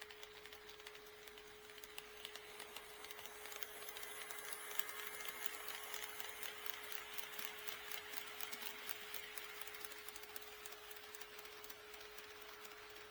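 HO-scale model train rolling along the track, its wheels clicking rapidly over the rail joints, the clatter growing louder from about four seconds in and easing off near the end as it passes, over a steady faint hum.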